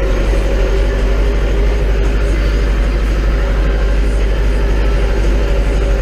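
Zetor 6340 tractor's four-cylinder diesel engine running steadily, heard from inside the cab, while it pulls a Cambridge roller across the field.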